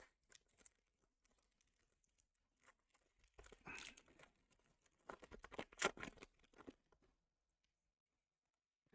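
Foil booster pack wrapper being torn open and crinkled by hand: a faint short rustle about three and a half seconds in, then a louder run of crackles for about a second and a half.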